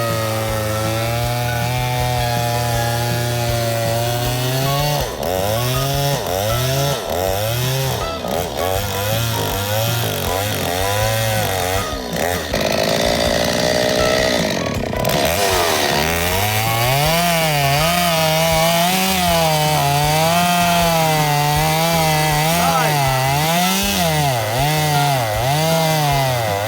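Jeep engine under hard throttle, revving up and down about once a second as the driver works the throttle, typical of a Jeep fighting for traction on a muddy hill climb. The revs hold steady for the first few seconds before the rocking starts.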